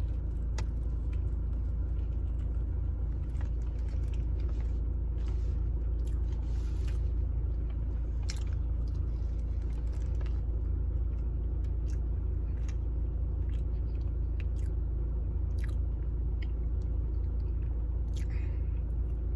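Close-up mouth sounds of a person eating fast food: scattered bites, smacks and chewing clicks. Under them runs a steady low rumble.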